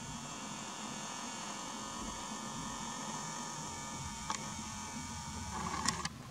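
Steady electronic whine from a camera's zoom motor while the lens zooms in, with a couple of sharp handling clicks in the second half.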